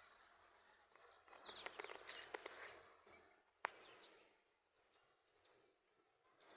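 Faint outdoor background of small birds chirping, with a single sharp click a little past halfway.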